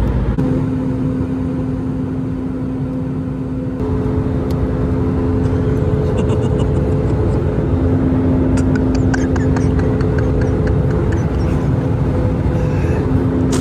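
Airliner cabin noise: a steady engine drone with two even hums, getting slightly louder about four seconds in, and a few faint ticks in the middle.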